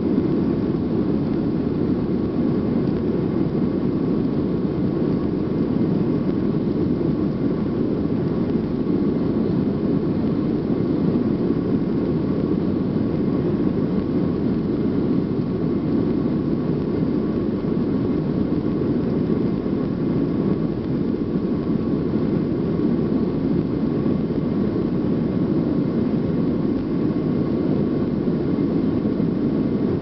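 Jet airliner's engines at takeoff power during the takeoff roll, heard from inside the cabin over the wing: a steady, loud, deep rush with a faint steady whine above it.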